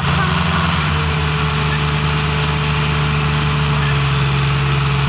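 Diesel tractor engines running at steady revs, a constant low hum with no change in pitch.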